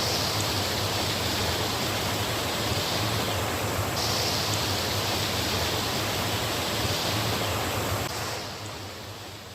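Waterfall rushing steadily, a dense even roar of water that fades out over the last second and a half.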